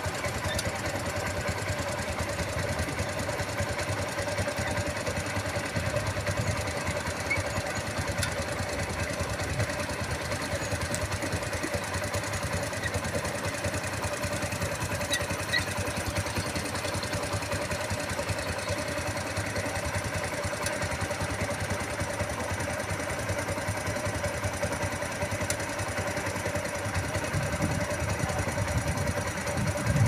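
Engines of earthmoving machinery such as hydraulic excavators running steadily, a continuous engine drone with a low rumble that grows a little louder near the end.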